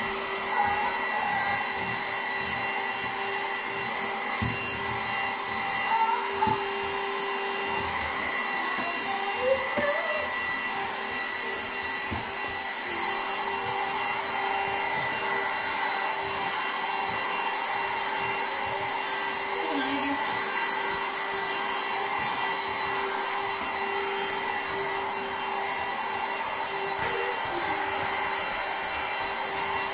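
Handheld cordless vacuum cleaner running steadily, a constant motor whine with airflow hiss, as its crevice nozzle is worked over a tabletop to suck up debris.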